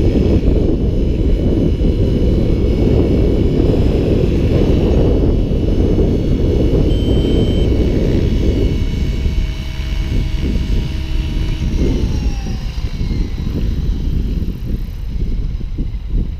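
Gaui X7 electric RC helicopter coming in to land, its motor and rotor whining steadily over a loud low rush. About twelve seconds in, the whine falls in pitch as the rotor spools down after touchdown.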